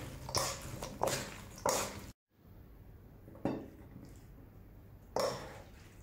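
Wooden spatula and spoon tossing shredded green mango salad in a stainless-steel bowl, a wet scraping swish about every two-thirds of a second. After a brief break, a spoon knocks on a ceramic plate twice as the salad is served.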